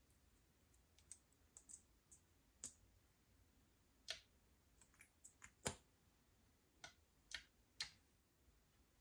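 Slime being worked by hand as makeup is mixed in: a dozen or so faint, irregular sticky clicks and small pops, with a few louder pops in the second half.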